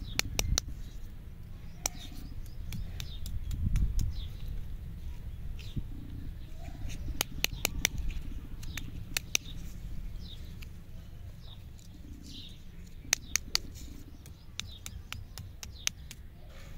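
Wrapped stick lollipops being handled, making irregular sharp clicks, with a quick run of three late on. Birds chirp faintly in the background.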